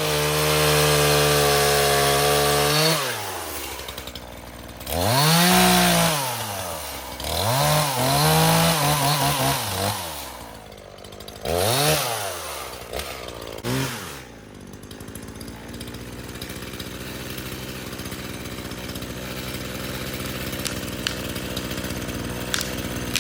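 Two-stroke chainsaw held at full throttle for about three seconds, dropping back, then revved up and down four times, and idling steadily for the rest.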